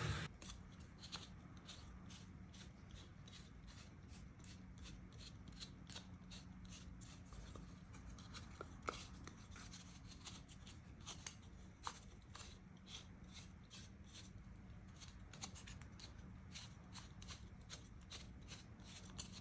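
Faint wooden clicks and rubbing as a small plywood jig, a dowel pin sliding in a slot beside a round wooden disc, is turned and worked by hand, over a steady low hum. The trim router's noise cuts off right at the start.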